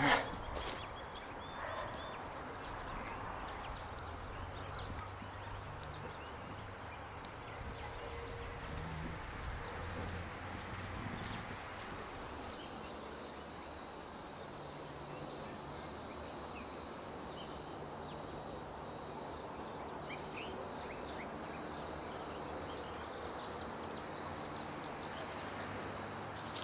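Insects chirping: a high, rapid pulsing trill that settles into a steadier continuous tone about halfway through, over a faint low hum. A few soft knocks come in the first few seconds.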